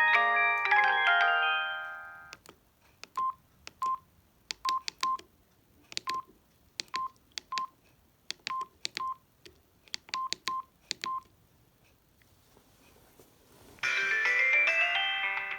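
Samsung SGH-D600 mobile phone: a polyphonic tone fades out over the first two seconds, then about a dozen keypresses click and beep as the menus are navigated. Near the end another polyphonic tune starts playing from the phone's speaker.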